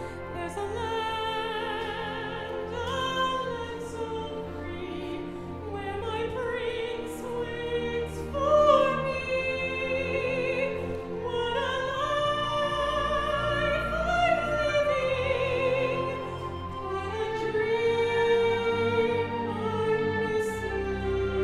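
Operatic solo singing with vibrato over a symphony orchestra's sustained accompaniment.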